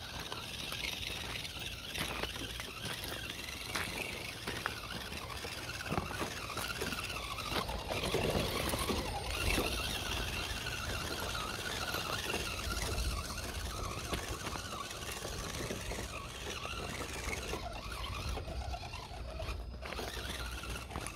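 1/10-scale RGT Jeep Rubicon RC rock crawler working over loose rocks: a high, wavering whine from its electric motor and gearbox, with scattered small clicks and knocks of tyres and chassis against stone.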